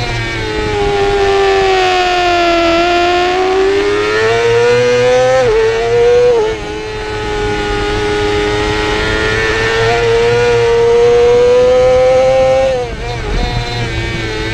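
2017 Yamaha YZF-R6's 600 cc inline-four engine running hard at high revs. Its pitch sags and climbs through the corners, with a quick drop in revs about six seconds in and again near the end, over a low wind rush.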